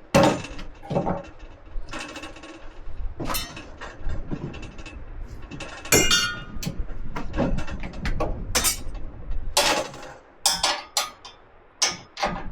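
Hand tools working on steel bracing hardware: an irregular run of metallic knocks, clanks and clinks as wrenches tighten U-bolt nuts on steel brackets.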